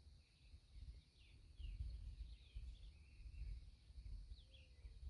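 Faint outdoor ambience: a few short, quiet bird chirps scattered through, over a low rumble and a steady high-pitched hum.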